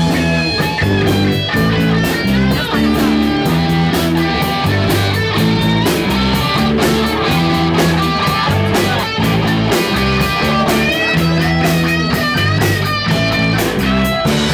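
Hard rock instrumental passage: an electric guitar lead with bending notes over steady drums and bass, with no singing.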